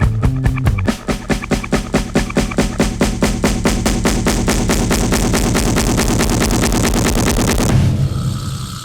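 Background music with a fast, even drum beat and bass line, which stops about eight seconds in, leaving a quieter steady hum.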